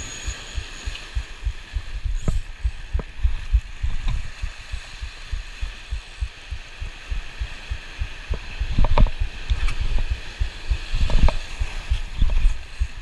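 Rapid, irregular low thumping and rumble of handling noise on a body-worn camera's microphone while a fish is fought on rod and spinning reel, with a few sharp clicks.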